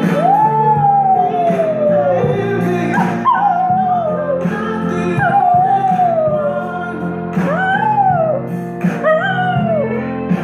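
Miniature schnauzer howling along to a romantic pop ballad playing back. About six howls, each rising and then sliding down in pitch; the first is long and the later ones are shorter.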